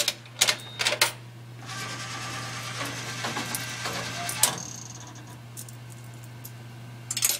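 Vending machine vend cycle: a few sharp clicks, then the vend motor runs for about three seconds with a ratcheting mechanical whir and stops with a click. A steady low hum runs underneath.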